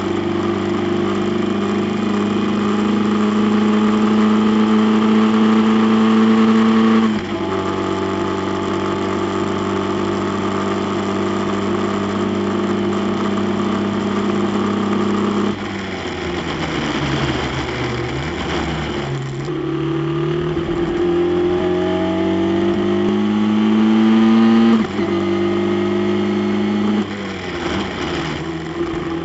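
Formula Ford race car's four-cylinder Ford Kent engine, heard from the cockpit at full throttle, with an upshift about seven seconds in. Midway the revs fall away with road and wind noise as the car brakes, then climb again under acceleration, with another upshift shortly before the end.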